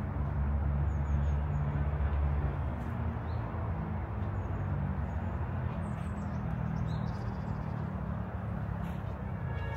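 Outdoor city ambience: a steady low rumble of distant traffic, with a few faint, short, high chirps of small birds.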